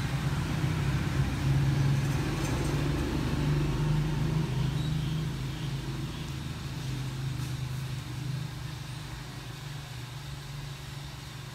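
Steady low engine hum that slowly fades over the second half.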